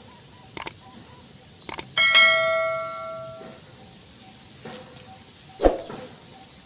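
Subscribe-button sound effect: two quick double clicks, then a bright bell ding that rings out and fades over about a second and a half. A short thump follows near the end.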